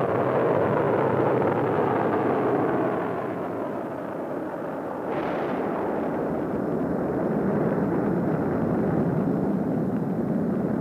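Energia heavy-lift rocket carrying the Buran orbiter at liftoff: a continuous, loud rumble of rocket-engine exhaust. The noise dips slightly and then comes back sharply with a brief hiss about halfway through.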